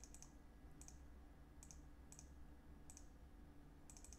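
Faint computer mouse clicks: single clicks about a second apart, then a quick run of several near the end, over a faint steady low hum.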